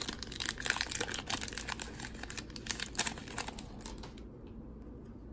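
Foil trading-card pack being opened and its cards handled: a quick run of small crinkling clicks and crackles that thins out after about four seconds.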